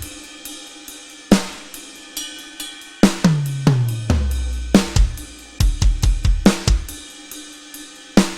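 Drum kit playing a loose pattern with snare, bass drum, hi-hat and cymbals: a cymbal crash about 1.3 seconds in, tom hits that drop in pitch as they ring around three seconds in, and a quick fill of hits a little past halfway.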